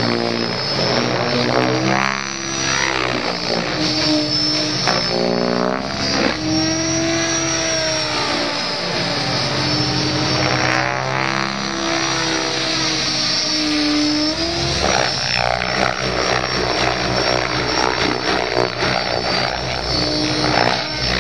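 Electric Mikado Logo XXtreme radio-controlled helicopter flying aerobatics: the rotor blades buzz and the motor whines, with the pitch sweeping up and down again and again as it swoops, climbs and passes overhead.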